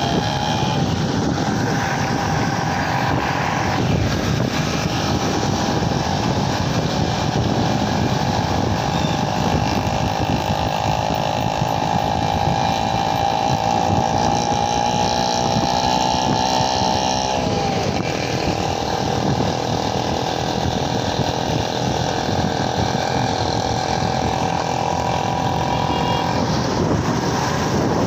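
A motor vehicle's engine runs steadily over continuous road noise. Its pitch climbs gradually and then drops sharply about seventeen seconds in, as the engine eases off.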